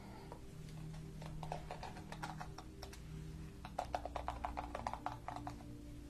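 Two quick runs of light, sharp plastic clicks, the second denser and louder, from a pink plastic detangling hairbrush being handled close to the microphone.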